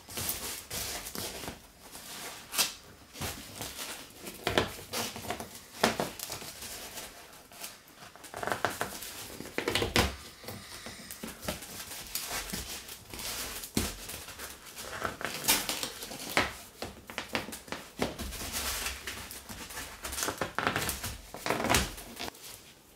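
Woven fiberglass roving cloth rustling and crinkling as hands smooth and wrap it around a polystyrene frame, an irregular run of scratchy handling noises and small clicks.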